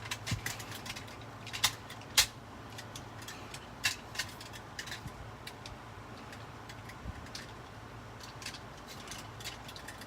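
Hard plastic clicks and taps from a toy being handled: a few sharp clicks in the first four seconds, then sparser faint ticks over a low steady hum.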